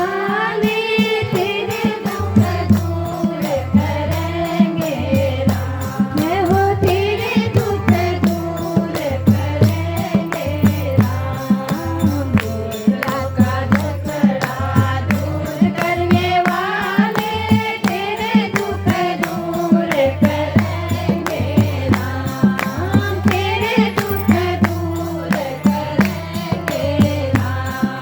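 A woman singing a Hindi devotional bhajan over a steady, evenly spaced percussion beat.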